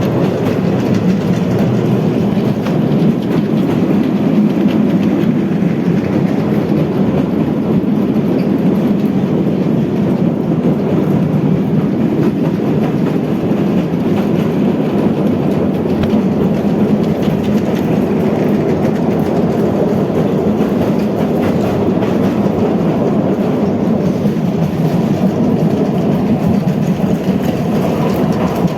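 Train running on rails, a steady rolling rumble with wheel clickety-clack, laid in as a sound effect over model trains.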